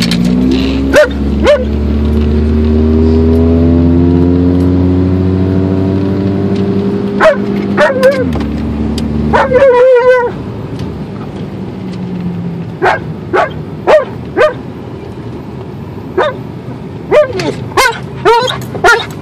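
Alaskan Malamute barking in short bursts of sharp barks, with one longer drawn-out bark about ten seconds in and a quick run of barks in the last six seconds. Under the first eight seconds a car engine runs loudly and rises slowly in pitch as the car accelerates, then falls away.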